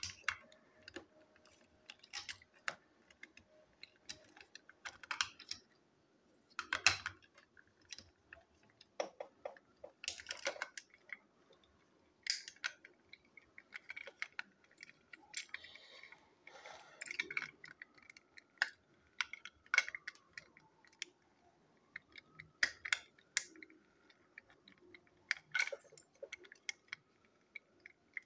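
Plastic clicks and knocks from a Plarail toy train's plastic body shell being handled and pressed back onto its battery-motor chassis: irregular sharp clicks, a few louder snaps among them.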